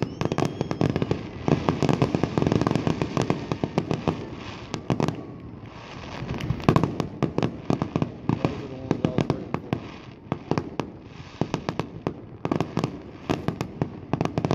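Aerial firework shells bursting in a display: a rapid, dense crackle of many sharp pops in clusters, easing briefly about six and ten seconds in.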